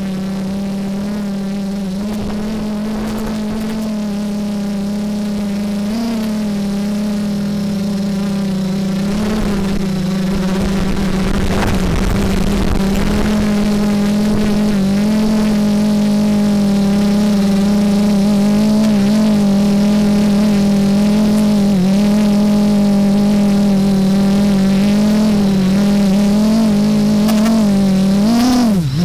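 Quadcopter drone's motors and propellers humming steadily, the pitch wobbling slightly as it manoeuvres, with a brief rush of air noise about twelve seconds in. Just before the end the pitch dips sharply and climbs back.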